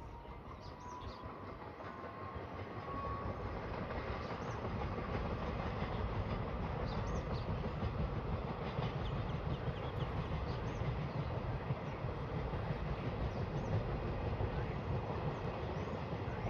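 Train running slowly just after pulling out of a station. Its rumble grows louder over the first few seconds, then holds steady as the train passes.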